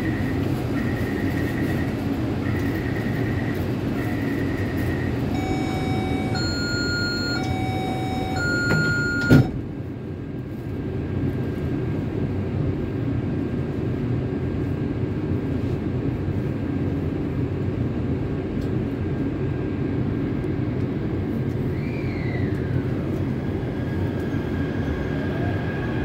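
Taipei Metro C371 train at a station: repeated door-warning beeps, then the multi-note door-closing chime, and the doors shut with a thud about nine seconds in. After a steady hum, the train's IGBT-VVVF traction inverter starts to whine near the end as the train pulls away.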